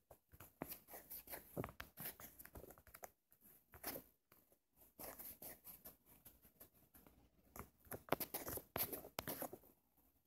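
Soft, irregular taps and short scratchy strokes on a phone's touchscreen during drawing. They come in quick clusters with brief pauses between them.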